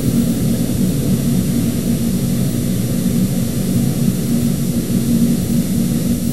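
A steady low hum, nearly as loud as the talk around it, with no distinct knocks or clicks.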